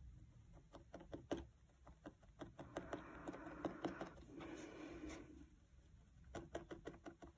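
Felting needle stabbing repeatedly through wool fibres into a foam felting pad, faint irregular ticks, while the daisy's petal edges are shaped. A soft rustling runs for about two seconds in the middle.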